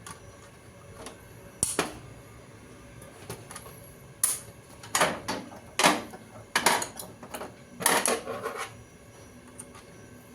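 Sharp metallic clicks and clatter at irregular intervals as screws are taken out of a 400 W power supply's mounting, with a busier run of clicks in the middle of the stretch.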